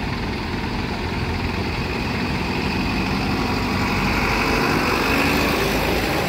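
Tata lorry's diesel engine running as the truck drives slowly past close by, getting a little louder and rising in pitch a few seconds in, over a steady low engine rumble.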